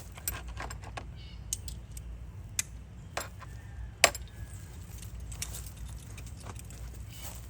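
Small metal tools clicking and clinking as a T30 Torx bit is picked out and handled, with irregular sharp clicks and one louder clink about four seconds in.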